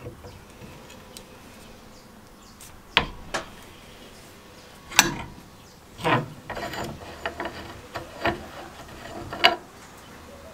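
Brass valve block being unscrewed by hand from a rusty iron body: a handful of short, irregular metallic scrapes and clicks from the threads, starting about three seconds in.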